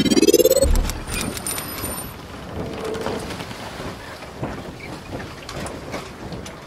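Logo intro sound effect: a rising swoosh that ends in a low boom about a second in, then a brief high sparkling chime and a crackling hiss that slowly fades.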